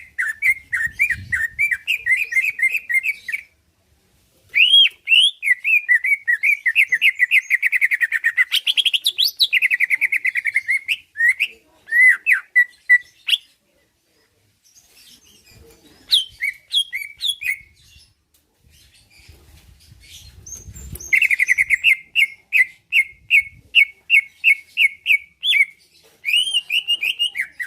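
Green leafbird (cucak ijo) singing in long, rapid, chattering phrases of quick repeated notes, in several bouts separated by short pauses, with a quieter stretch midway.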